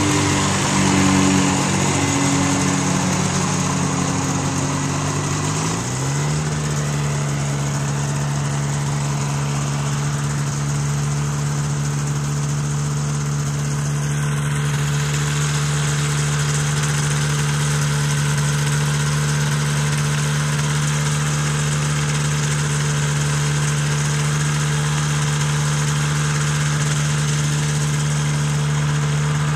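Powered parachute engine running overhead, its pitch falling slowly as it moves past. About six seconds in the sound switches abruptly to a powered parachute engine idling steadily at one even pitch.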